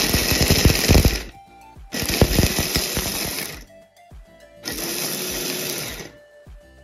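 Electric mini chopper pulsed three times, about a second and a half each, its blade grinding cashews, almonds and walnuts to a coarse crumb. The hard nut pieces rattle against the jar in the first two pulses, and the third runs smoother as the nuts break down.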